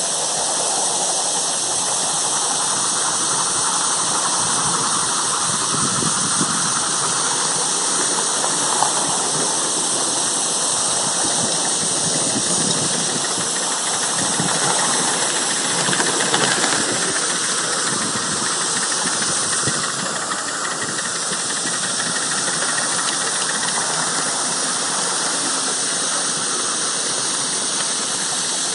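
A 5-inch gauge C2 Atlantic live-steam model locomotive hissing steadily with escaping steam as it runs.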